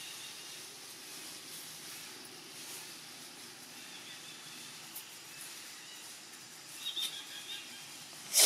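Steady outdoor hiss with a few short high chirps about seven seconds in. A sudden loud breathy burst comes right at the end.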